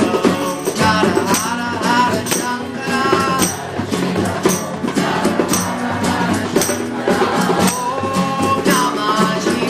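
Kirtan devotional music: a melody that bends and slides, over steady held bass notes, with hand percussion and a jingling tambourine-like shake keeping an even beat.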